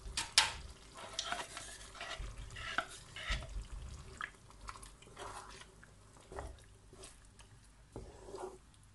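Wooden spatula scraping double cream out of a tub, then stirring it through a tomato sauce in a frying pan: irregular scrapes and light taps.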